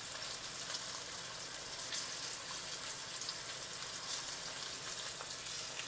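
Veal shanks sizzling as they brown in oil in an enamelled pan: a steady, fairly quiet hiss with faint scattered crackles.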